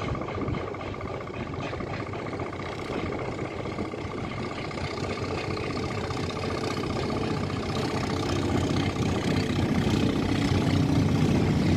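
A boat engine running steadily, with a steady high whine over it and the low engine noise growing louder toward the end.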